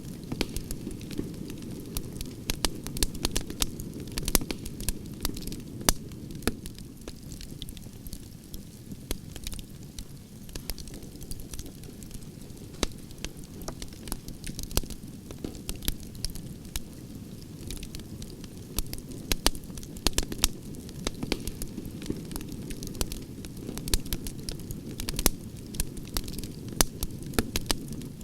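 Wood fire burning: a steady low rumble of the flames with frequent irregular crackles and pops from the burning logs.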